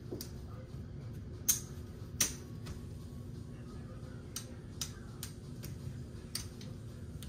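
Casino chips clicking against one another as they are split from a stack and set down on a craps table layout: irregular sharp clicks, about ten, the loudest two about a second and a half and two seconds in.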